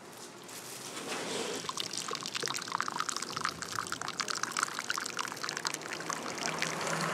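Liquid running from the tap of a stainless-steel urn into a ceramic mug, a splashing, gurgling pour that starts about a second in.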